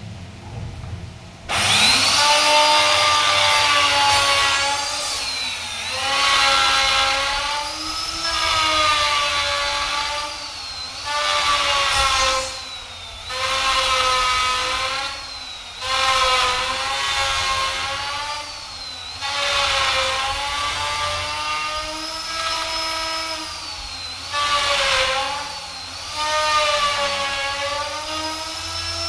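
Handheld electric power tool cutting wood, starting up about a second and a half in. Its motor whine sags in pitch and turns noisy each time the cutter bites, then recovers, over and over in passes about two seconds apart.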